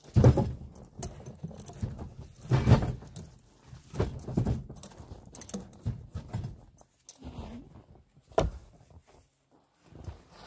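Birch firewood logs being loaded onto a sled, knocking and thudding as they are dropped onto the stack: several sharp wooden knocks, the loudest right at the start and about two and a half seconds in, with quieter handling noise between.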